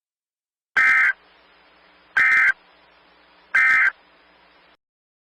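Emergency Alert System end-of-message (EOM) data tones: three short bursts of the digital SAME signal, each under half a second and about a second and a half apart, marking the end of the alert. A faint hiss runs between the bursts.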